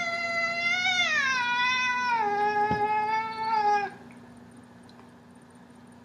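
Domestic cat giving one long, drawn-out meow that falls in pitch partway through and stops about four seconds in.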